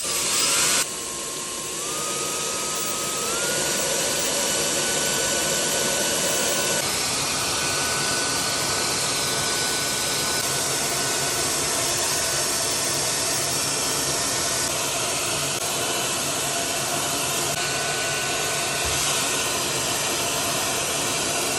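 InfinitiPRO by Conair DigitalAIRE hair dryer switched on and running, a steady rush of air with a thin high motor whine. The whine steps up in pitch twice in the first few seconds, then holds steady.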